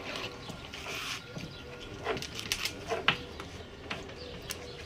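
A knife tapping on a wooden cutting board a few times, over a steady bird cooing in the background.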